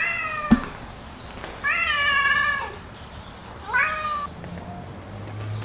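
A cat meowing three times, each call rising and then falling, with a sharp click just after the first.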